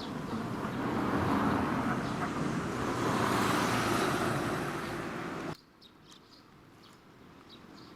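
A road vehicle passing by, its tyre and engine noise swelling and then easing, cutting off suddenly about five and a half seconds in.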